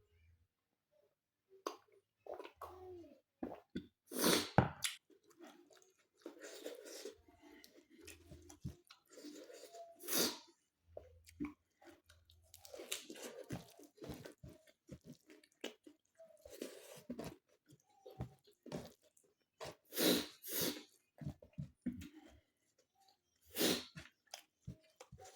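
A person chewing and eating food up close to the microphone, with irregular wet mouth sounds and sharp crunches. The loudest crunches come about four seconds in and again about twenty seconds in.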